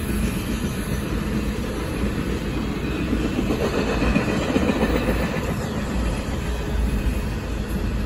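Intermodal freight cars loaded with truck trailers and containers rolling past close by: a steady rumble of steel wheels on the rails, swelling a little about halfway through.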